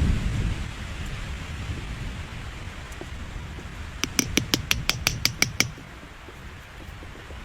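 Wind gusting against the microphone, strongest at the start and then easing. About a third of the way through, a quick run of about ten sharp, evenly spaced clicks sounds for under two seconds.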